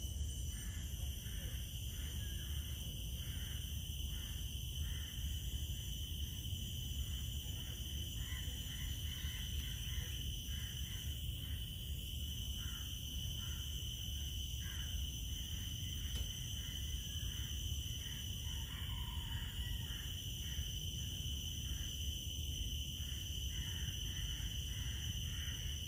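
Steady chorus of insects: a high continuous drone at several pitches, with fainter short pulses about twice a second and a low rumble underneath.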